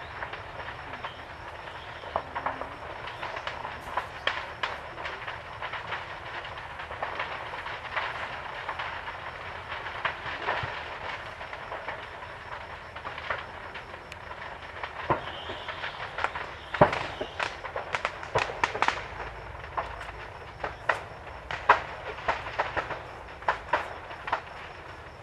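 Fireworks warehouse fire: a steady hiss under irregular sharp pops and crackles from the burning fireworks stock. There are two louder bangs, about 17 seconds in and again near 22 seconds.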